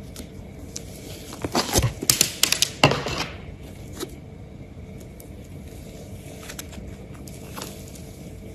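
Hands squeezing and pressing a thick, doughy slime studded with sprinkles, making crackling, popping clicks. The popping is densest from about one and a half to three seconds in, then thins to a few scattered pops.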